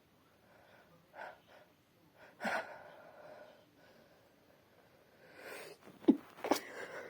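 A woman's wet sneeze into a tissue: quick breaths and a sharp gasp, a drawn-in breath, then near the end the sneeze comes out as two sudden bursts about half a second apart, the loudest sound here.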